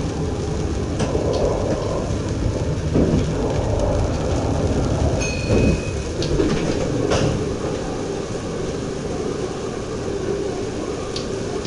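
Inside the cab of a DM'90 diesel multiple unit running along the track: a steady low rumble of engine and wheels on rail, with a few clicks and a brief beep about five seconds in.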